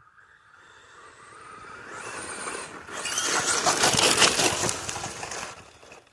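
Traxxas Sledge Hammer VXL RC truck running at speed: the electric motor's whine grows louder as it approaches, then a loud rush of tires churning over rough ground as it passes close, fading away near the end.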